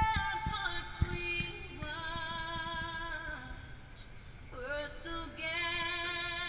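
A woman singing a slow song in long held notes, some with vibrato.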